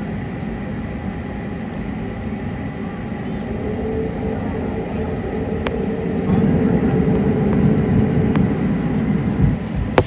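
Cabin noise of an Airbus A380 taxiing: a steady low rumble with a faint high whine, joined a few seconds in by a second, lower whine, and growing louder over the second half.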